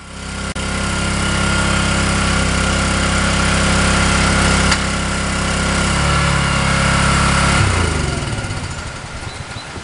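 A small engine or motor running steadily. It slows with a falling pitch and stops about eight seconds in.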